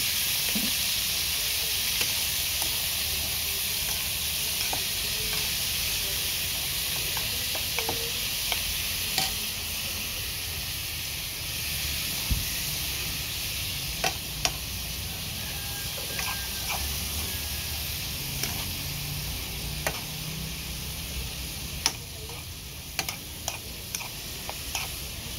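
Sliced coconut core sizzling in a frying pan as it is stirred with a metal spoon, a steady hiss broken by scattered clicks and scrapes of the spoon against the pan, more of them in the second half.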